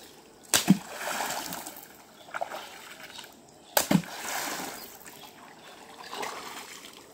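A wooden stick slapping down on the river surface, with splashing and sloshing water after each blow: two loud strikes about three seconds apart and a lighter one between. This is the beating of the water that drives fish toward a trammel net.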